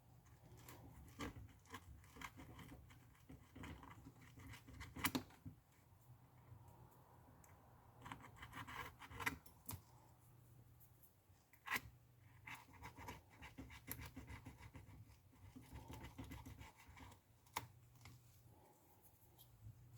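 Faint scratching and scraping of a tool working over an iPad's frame as it is cleaned, with a few sharp clicks, the loudest about five seconds in and again near twelve seconds.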